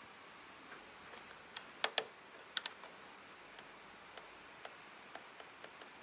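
Rotary encoder knob on a Mercedes-Benz Becker car radio clicking through its detents as it is turned: a few scattered clicks about two seconds in, then a run of light clicks at roughly two a second.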